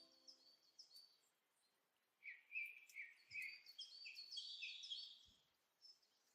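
Faint songbird chirping: a run of quick, short, high notes from about two seconds in until past five seconds, after the last notes of music die away at the start.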